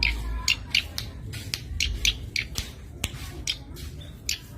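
Cici padi (zitting cisticola) calling: a series of short, sharp, high notes, about three a second, over a low rumble.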